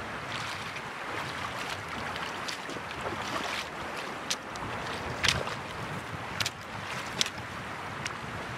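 Shallow river rushing steadily over stones, with sharp splashes of wader boots stepping through the water in the second half, the loudest about five seconds in.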